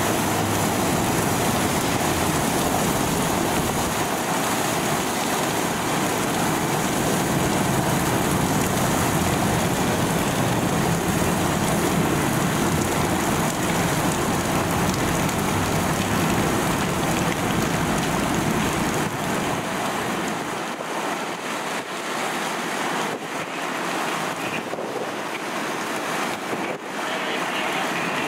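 Steady rushing hiss of water gushing from a sheared fire hydrant. The deeper rumble under it drops away about twenty seconds in.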